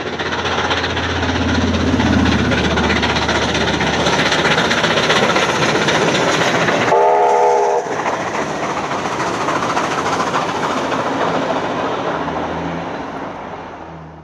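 Steam locomotive 3801 running past with its passenger train: a steady, loud rumble of the moving train, cut by one short whistle blast of several notes at once about seven seconds in, then fading away at the end.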